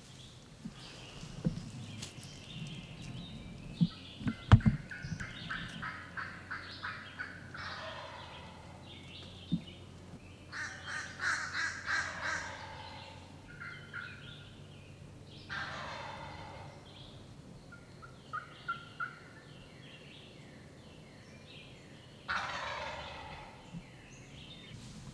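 Wild turkey gobbler gobbling several times, each gobble a rough rattling call of about a second. Between gobbles come runs of short, evenly spaced higher notes, and a few sharp knocks sound about four seconds in.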